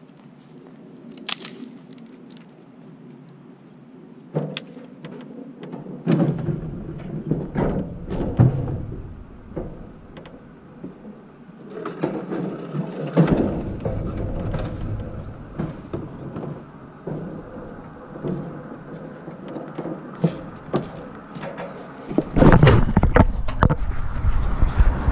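Scattered knocks and thumps with low rumbling on the microphone. Near the end comes louder, close rubbing and knocking as the camera is picked up and handled.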